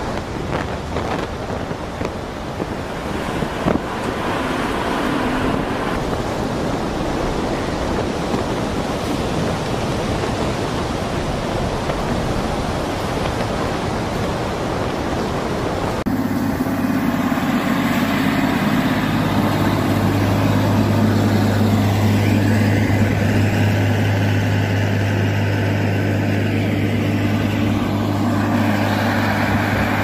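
Heavy rain and strong wind buffeting the microphone in a storm. About halfway through it cuts to a steady low vehicle engine hum, with rain and tyres hissing through floodwater.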